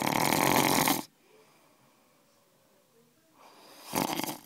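A man snoring loudly in his sleep: one long snore at the start and a shorter one near the end, with quiet breathing between.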